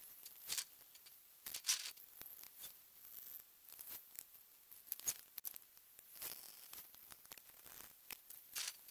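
Faint, scattered clicks, scrapes and rustles of hand work on the boat's floor boards as they are unscrewed and lifted out.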